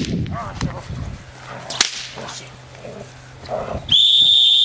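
A helper's training stick cracks once, sharply, about two seconds in during German shepherd protection bite work. Near the end comes a loud, steady, high whistle lasting nearly a second.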